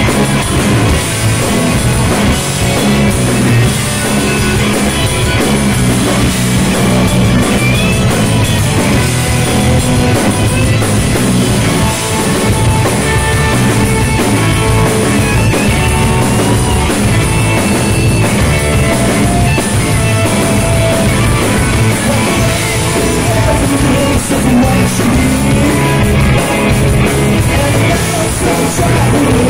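Rock band playing live: two electric guitars, an electric bass and a drum kit, loud and steady throughout.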